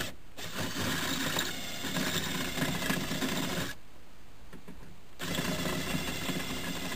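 Power drill running with its bit against a steel rivet in a car door's inner panel, drilling off the rivet head. It stops about three and a half seconds in and starts again about a second and a half later. The rivet spins with the bit instead of being cut.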